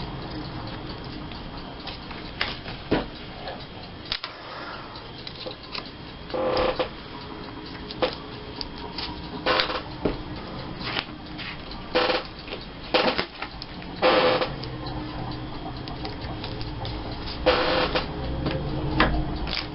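Scrapbooking supplies being handled on a craft table: scattered short rustles and scrapes with sharp clicks and taps, every second or two.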